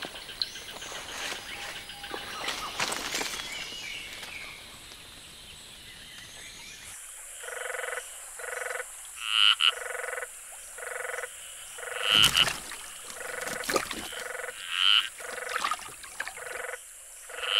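Frogs calling in a forest: from about seven seconds in, a run of short croaking notes repeats about twice a second, with a louder, higher call every few seconds. Before that there is only faint forest ambience.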